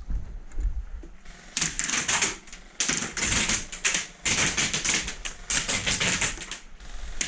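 Airsoft electric guns firing full-auto: several long bursts of rapid clicking shots, starting about a second and a half in, with short breaks between them.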